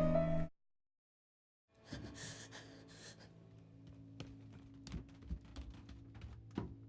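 A sung note cuts off about half a second in, followed by a second of dead silence. Then quiet room tone with a low hum, a person's breathy sighs and scattered small clicks and soft thumps.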